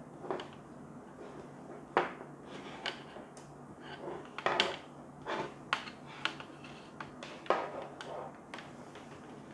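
Hands handling power cables and small plastic plug connectors of LED tube lamps: a series of sharp plastic clicks and taps with soft rustling of the cords between them.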